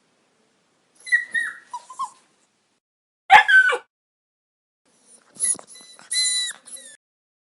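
Puppy crying: high, pitched whimpers and whines in three separate bouts, the loudest and shortest about a third of the way in.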